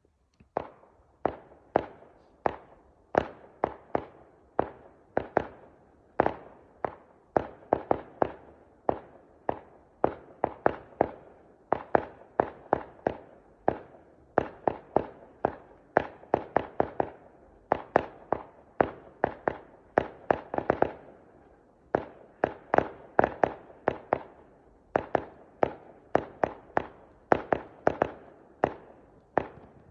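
Firework display: a rapid, irregular run of sharp bangs from aerial shells bursting, about two or three a second, each with a short echoing tail. It starts about half a second in and does not let up.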